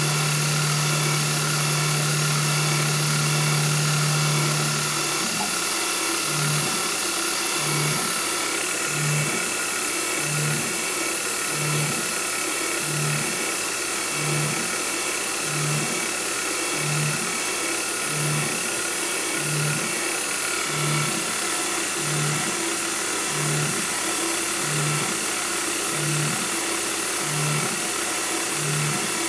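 CNC mill running an end mill into a steel hobbed bolt held in a stepper-motor indexing fixture, with coolant on the cut, cutting the bolt's teeth. A steady hum about five seconds in gives way to short hum pulses about every 1.3 seconds as the bolt is pecked and indexed around.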